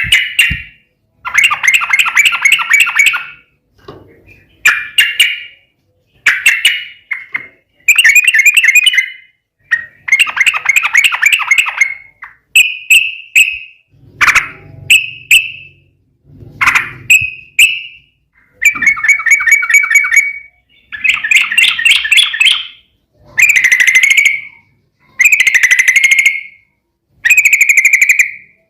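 Yellow-vented bulbul (trucukan) singing a run of loud, bubbly warbled phrases, each about one to two seconds long, with short pauses between them.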